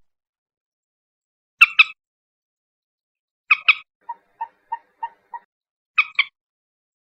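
Common moorhen calling: three loud, harsh double calls about two seconds apart, with a run of five short, softer notes, about three a second, between the second and third.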